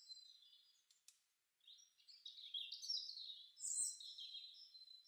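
Small songbirds chirping and twittering faintly, a quick jumble of short high calls that gets busier from about two seconds in, with two faint clicks about a second in.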